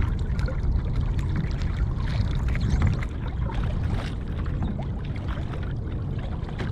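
Small waves lapping and splashing against a kayak's hull, with scattered little slaps, over a steady low rumble of wind on the microphone.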